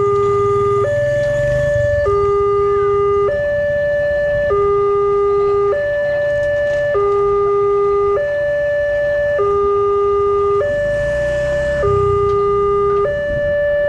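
Electronic railroad level-crossing warning alarm sounding a steady two-tone hi-lo pattern. A low tone and a higher tone alternate evenly, each lasting about a second and a quarter. It is warning of an approaching train while the crossing lights flash and the boom barriers lower.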